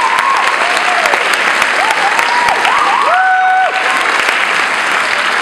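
Audience applauding loudly, with several rising and falling shouts and whoops over the clapping in the first few seconds.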